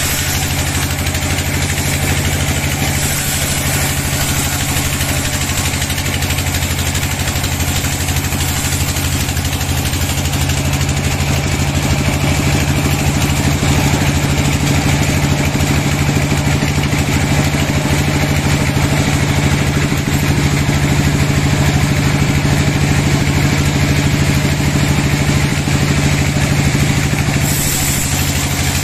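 Horizontal bandsaw mill running steadily while its band blade rips lengthwise through a log, a continuous machine hum under the hiss of the cut. It grows a little louder about midway, and the high hiss changes shortly before the end as the cut finishes.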